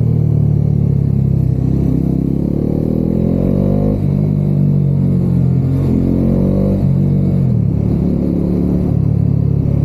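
Bajaj Dominar 400's single-cylinder engine pulling under throttle, its pitch climbing and then dropping back at gear changes about four and seven and a half seconds in, heard from inside the rider's helmet.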